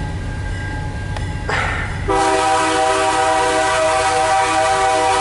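CN diesel locomotive's multi-chime air horn sounding one long, steady chord, starting about two seconds in, over a low rumble; the horn is blown for the grade crossing as the train approaches.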